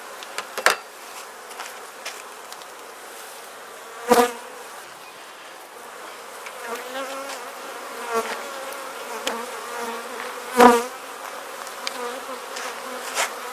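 Honeybees of an opened Langstroth hive, an Italian/Carniolan mix, buzzing steadily, with a few sharp knocks, loudest about four and ten and a half seconds in.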